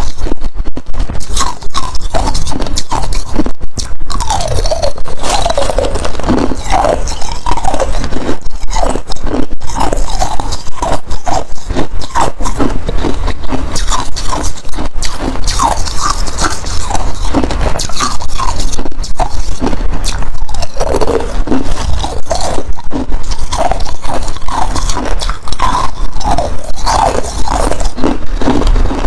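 Close-up biting and chewing of hard ice: dense, irregular crunching and crackling as the ice cracks between the teeth.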